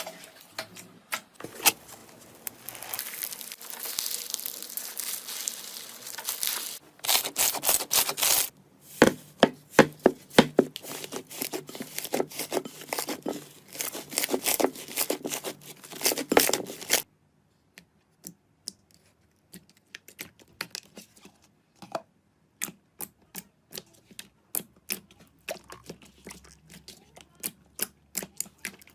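Slime being squeezed, pressed and stretched by hand, giving crackling, popping clicks and tearing noises. The crackling is dense until it cuts off suddenly partway through, after which the clicks come sparser.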